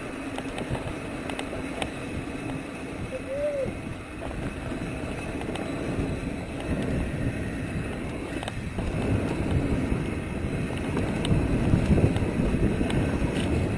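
Mountain bike rolling fast down a dirt singletrack: tyres rumbling over the dirt and the bike rattling over bumps, with wind on the microphone. It grows louder and rougher near the end.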